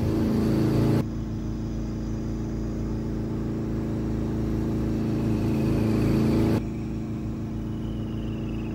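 Motorcycle engine running steadily under way, a droning hum. It drops abruptly in level about a second in and again near the end.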